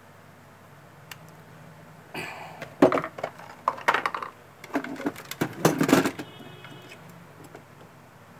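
A clear plastic parts box handled on a workbench: it is lifted and set down with a run of clattering knocks and rattles between about two and six seconds in, then quiet handling as small parts are fitted.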